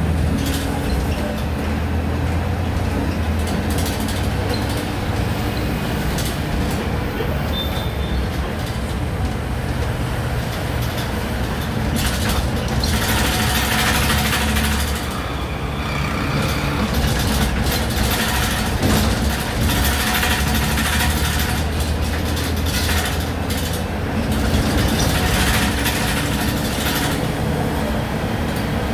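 Volksbus 17-230 OD natural-gas city bus running, its engine giving a steady low hum, with several stretches of louder hissing noise over it.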